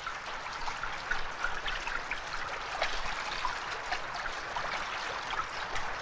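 Rain pouring down onto a flooded floor: a steady hiss of falling water with many small splashes and drips scattered through it.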